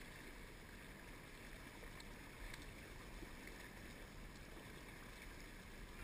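Faint, steady wash of river current, with no distinct sounds standing out.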